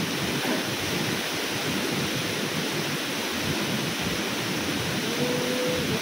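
Waterfall pouring into a pool: a steady rush of falling water.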